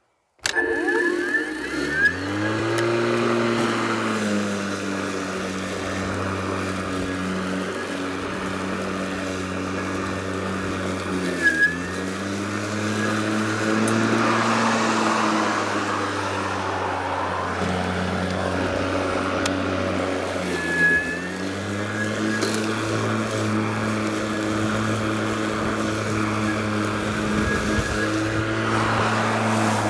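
Worx WG749 40 V brushless cordless lawn mower starting up about half a second in, its blade motor rising to speed over a couple of seconds, then running steadily while cutting grass. Its pitch dips briefly twice before recovering.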